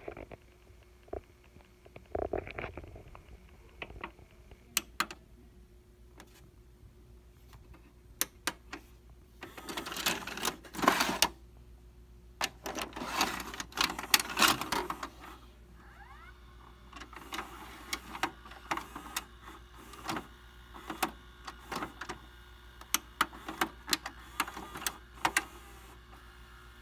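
VCR being loaded: scattered clicks, then a VHS cassette pushed into the front slot with scraping and rattling about ten to fifteen seconds in. After that the tape-loading mechanism whirs and clicks repeatedly as it takes the tape in.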